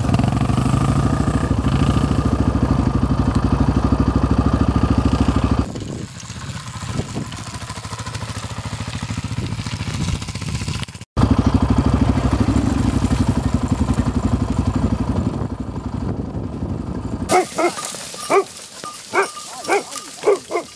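Enduro dirt bike engines running under way: first a bike pulling away across a meadow and fading about six seconds in, then, after a sudden cut, another bike running loud. About seventeen seconds in the engine stops, and a flock of sheep bleats repeatedly in short calls.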